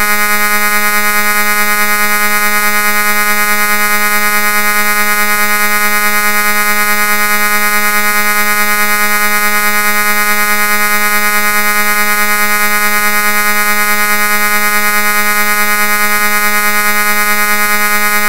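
A loud, steady electronic drone: one synthesized buzzing tone with many overtones, held at a single pitch without change.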